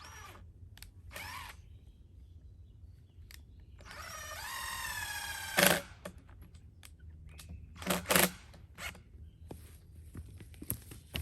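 Steel tape measure retracting after the far end is let go: a whir that rises in pitch for under two seconds, ending in a sharp snap as the hook hits the case. Short scrapes and knocks of handling come before and after it.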